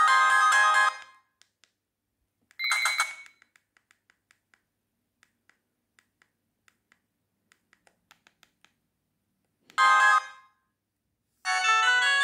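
Polyphonic ringtones from a BenQ-Siemens A38 mobile phone's loudspeaker: one tune cuts off about a second in, a short burst of tones sounds near three seconds, then a run of faint ticks. A brief snatch of tune plays around ten seconds, and a new ringtone starts near the end.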